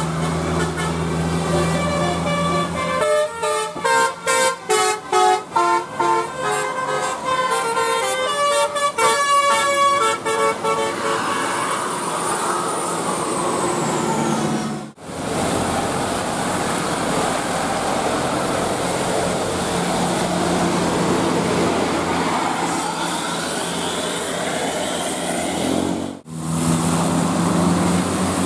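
Bus 'telolet' multi-tone air horn playing a tune: a held tone, then a quick run of short stepped notes for several seconds, over steady vehicle noise. The sound drops out briefly twice, near the middle and near the end.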